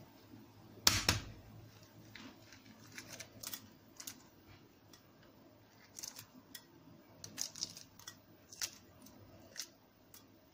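Hard-boiled duck eggs being peeled: a sharp knock about a second in, then scattered small clicks and crackles of shell being broken and picked off.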